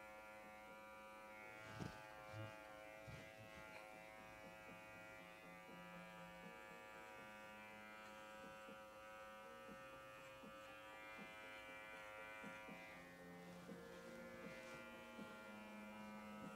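Electric dog grooming clippers running with a faint, steady hum while clipping a Shih Tzu's coat.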